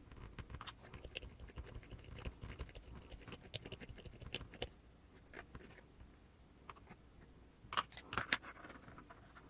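Small hard parts clicking and tapping as RC crawler suspension links and their rod ends are handled and assembled, with a cluster of louder clicks about eight seconds in.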